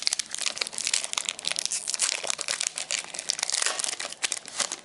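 Foil trading-card booster pack wrapper crinkling as it is handled and opened, a dense run of crackles that dies away near the end.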